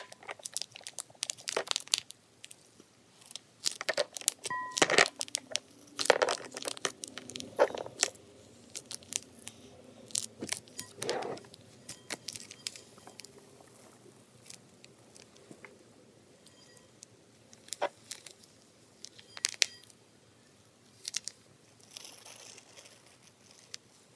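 A pink plastic icing bag being squeezed to pipe crushed Orbeez gel beads into a clear plastic cupcake mold: irregular crinkles, crunches and small plastic clicks, thinning out after about halfway.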